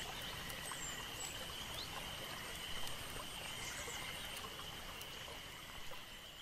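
Faint outdoor nature ambience: a steady hiss with a continuous high-pitched drone and a few faint chirps, slowly fading out toward the end.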